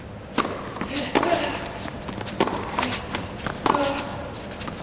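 Tennis rally: sharp racket-on-ball strikes about every second and a quarter, with softer knocks between them, echoing in an indoor hall.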